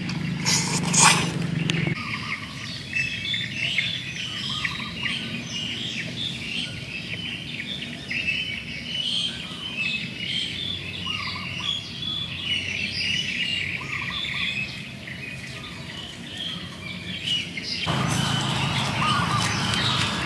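Birds chirping: many short, quick calls repeating over a soft background. The first two seconds hold a few sharp clicks of close-up eating, before the chirping takes over.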